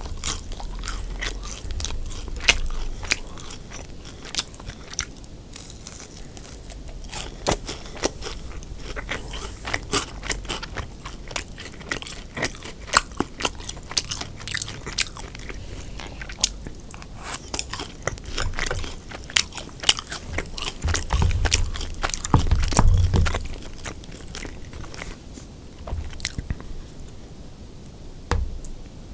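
Close-miked chewing and biting through a meal of crispy fried sweet and sour pork and fried rice, with many sharp crunches throughout and a few heavier low thumps a little past two-thirds of the way through.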